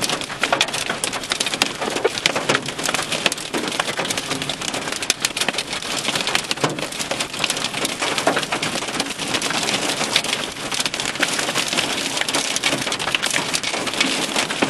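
Heavy rain and hail pelting a vehicle's roof and windshield, heard from inside the cabin: a steady rush with a dense clatter of sharp hard ticks throughout.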